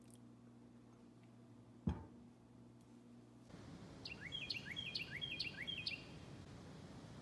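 A single sharp knock about two seconds in, then outdoor woodland ambience in which a songbird sings a short whistled phrase four times in quick succession.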